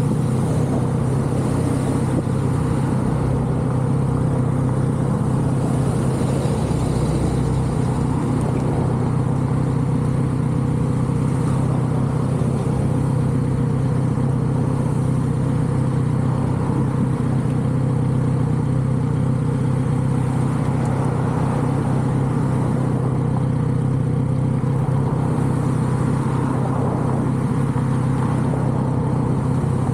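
Kawasaki Z900RS inline-four engine through its stock exhaust, running at a steady, nearly constant engine speed while the bike cruises, with no clear revving up or down.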